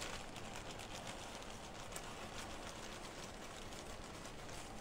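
Fritos corn chips pouring from their bag onto shredded cheese in a slow cooker: a faint rustle of the chip bag and light ticks of chips landing, one a little sharper about two seconds in.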